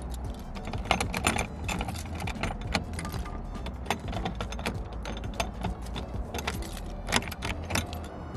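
Keys jangling and sharp metal clicks as a padlock is unlocked and taken off the latch of a trailer door, over a steady low hum.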